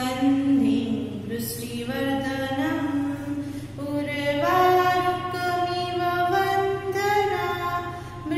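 A woman's voice singing a Hindu prayer chant, long held notes moving slowly between pitches over a steady low hum.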